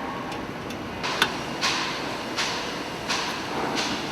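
Car-body assembly-line machinery running: a steady mechanical background with hissing bursts about every three-quarters of a second, and one sharp click about a second in.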